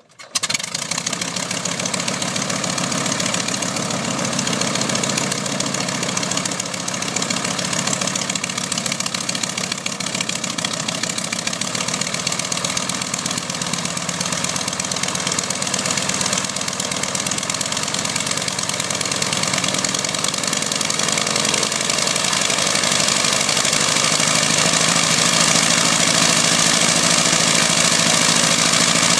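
Ryan PT-22 Recruit's Kinner five-cylinder radial engine catching suddenly right after the propeller is swung by hand, then running steadily at idle. It gets slightly louder about two-thirds of the way through.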